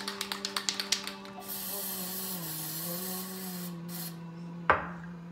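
A Flex Seal aerosol can shaken, its mixing ball rattling in a quick run of clicks, then sprayed in a long hiss into a plastic cup. Under it, a held tune is hummed, stepping between a few low notes, and there is one sharp knock near the end.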